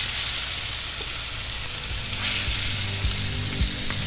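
Scallops sizzling in very hot oil in a stainless steel frying pan. The sizzle swells at the start and again about two seconds in, as more scallops are laid into the oil with tongs.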